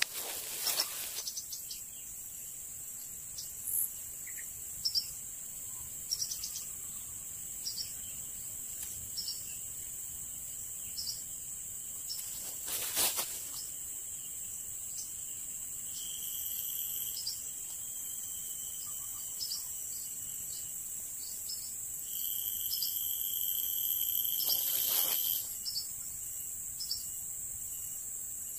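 Steady high-pitched insect drone with short chirps every second or two. A second, lower buzzing tone joins briefly past the middle and for a few seconds near the end, and two sharp clicks come about a second in and near the middle.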